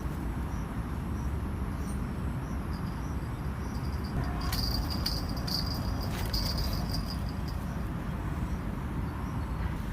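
Steady low outdoor rumble with insects chirring faintly and high from about a third of the way in, and a couple of faint clicks near the middle.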